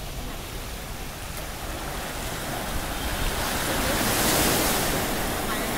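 Sea surf at the shoreline: a wave breaks and washes in, the rush swelling to its loudest about four seconds in. Wind rumbles on the microphone underneath.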